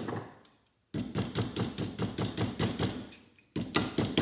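Hammer tapping rapidly on a small plastic relay housing clamped in a bench vise, about five or six strikes a second, to crack the case open for its silver contacts and copper coil. The tapping breaks off briefly about three seconds in and resumes.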